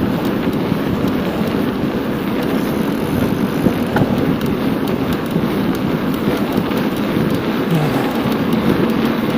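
Wind buffeting the microphone of a camera riding on a moving bicycle: a loud, steady rushing noise.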